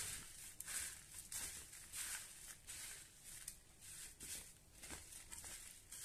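Dry, crisp puffed rice being tossed and mixed in a steel bowl: a faint crunchy rustle in short repeated strokes, about two a second.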